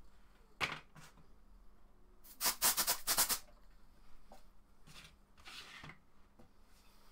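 Hand tools and small parts clicking and clattering during reassembly work on a compressor: one sharp click, then a quick rattle of about half a dozen clicks a couple of seconds in, and a few fainter clicks and scrapes.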